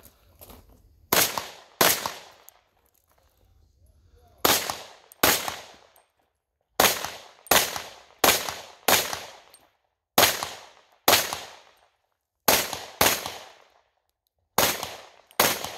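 Semi-automatic pistol fired at targets: about fourteen sharp shots, mostly in quick pairs roughly 0.7 s apart, with a run of four near the middle and pauses of a second or two between groups. Each shot has a short echoing tail.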